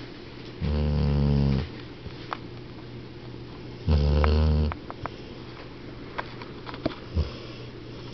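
A 12-year-old dog snoring in its sleep: two loud snores, each about a second long and some three seconds apart, then a brief one near the end.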